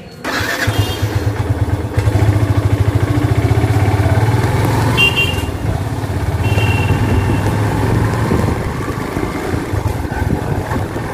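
Motorcycle engine running as the bike rides along, heard from the rider's seat; it gets louder about two seconds in.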